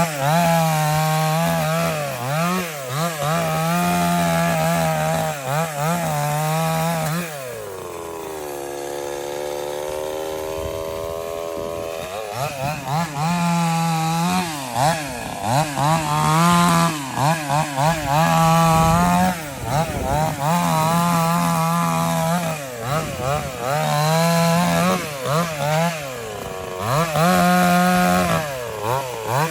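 Husqvarna two-stroke chainsaw revving up and down again and again while cutting brush and small trees. About seven seconds in it drops to a slower, steadier run for several seconds, then revs again.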